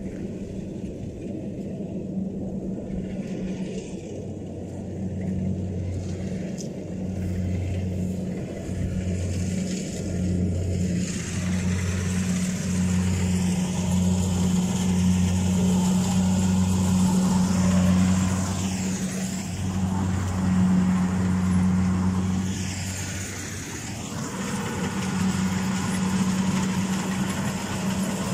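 Kubota rice combine harvester running as it reaps, a steady low engine drone that grows louder and fuller about ten seconds in.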